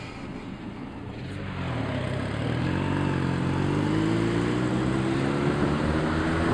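A vehicle engine accelerating away from a stop, its pitch and loudness rising slowly and steadily from about a second and a half in.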